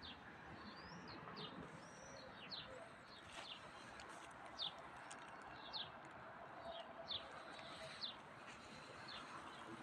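Small birds chirping faintly: short, high, falling chirps at irregular intervals, about one a second, with a couple of brief gliding whistles, over faint outdoor background noise.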